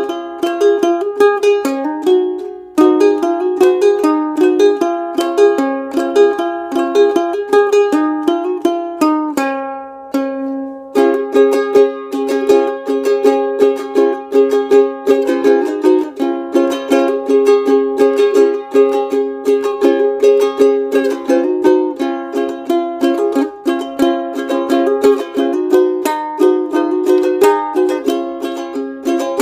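Ukulele played clawhammer (frailing) style: a quick, steady run of picked notes and brushed strums. About a third of the way in, the picking pauses while a note rings on, then the tune picks up again.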